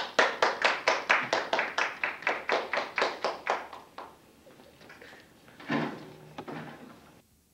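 Classroom audience clapping after a speech: an even run of about four or five claps a second that fades out after about four seconds. A couple of short, weaker sounds follow near the end before the sound cuts off suddenly.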